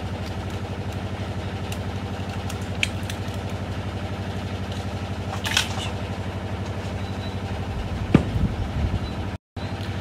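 A steady low mechanical hum with a fast, even pulsing, like a small motor running, with a few light clicks and knocks of kitchen handling and a thump about eight seconds in. The sound cuts out for a moment just before the end.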